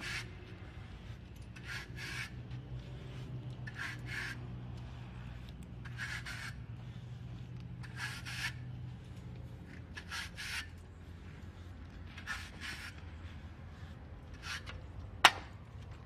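Scraping strokes on a horse's hoof held up by hand: short scrapes, often in pairs, about every two seconds, over a low steady rumble. There is one sharp click near the end.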